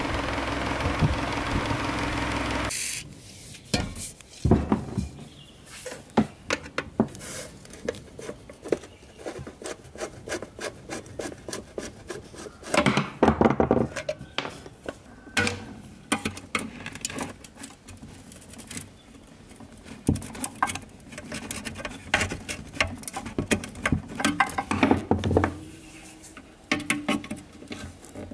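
An electric desk fan running with a steady hum, cut off abruptly about three seconds in. Then irregular clicks, scrapes and rubbing of pliers and cutters working on the old fan's metal joints and wiring, with a louder scraping stretch about halfway through.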